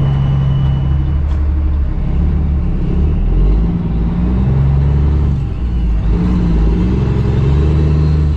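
Cummins ISX diesel engine of a 2008 Kenworth W900L semi truck pulling away. Its note drops and rises several times as it works through the gears.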